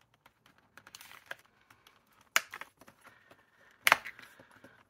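Thick plastic half-page lifter being snapped onto the metal discs of a discbound planner: a run of small plastic clicks, with two sharper snaps about two and a half and four seconds in.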